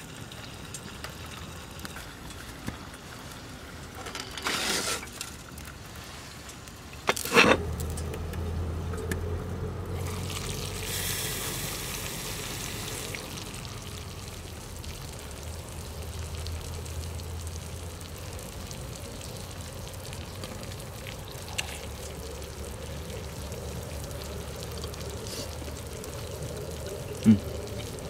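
A sharp clank about seven seconds in, then a cast-iron skillet of hamburg steak and sausages simmering and sizzling steadily in its sauce on a wood stove.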